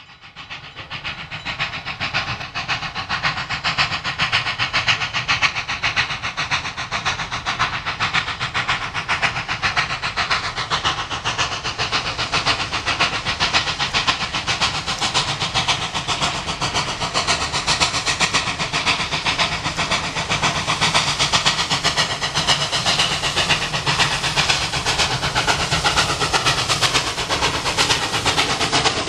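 Steam locomotive 5910, a New South Wales 59 class 2-8-2, working a passenger train past, its exhaust beating rapidly and evenly over a constant hiss of steam. The sound fades in over the first couple of seconds and then holds steady.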